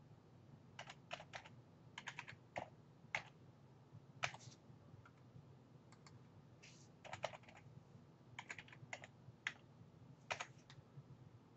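Faint computer keyboard keystrokes, typed in short irregular runs of clicks: a password being typed, then typed again to confirm it.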